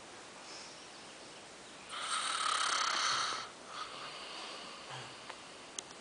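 A man snoring in his sleep: one long, loud snore starting about two seconds in and lasting about a second and a half, followed by a softer, quieter breath.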